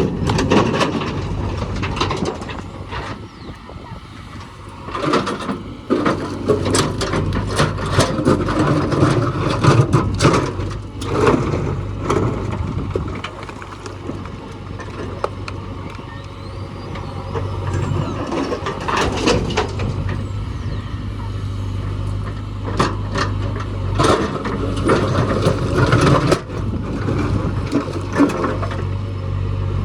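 Heavy diesel machinery running steadily, with repeated clanks and knocks throughout, as a JCB loads a dump truck.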